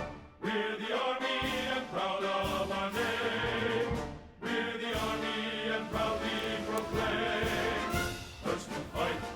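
Background music with choir-like voices and a steady beat.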